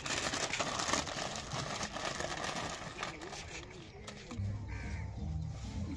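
Plastic snack packets rustling and crinkling as they are handled, loudest in the first second or so. Background voices and bird calls follow, and a low hum comes in near the end.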